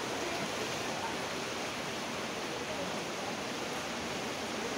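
Fast-flowing river water rushing and swirling around a bridge pier: a steady, even rush of water.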